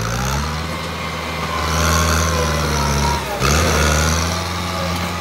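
Kubota M8540 tractor's four-cylinder diesel engine running under load while its front blade pushes dirt.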